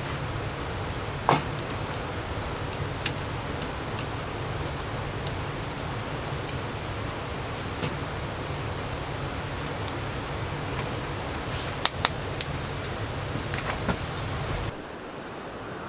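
Wood fire crackling with scattered sharp pops over a steady low rumble, with a quick run of clinks from cookware on the grill grate near the end. The sound then cuts to a quieter steady noise about a second before the end.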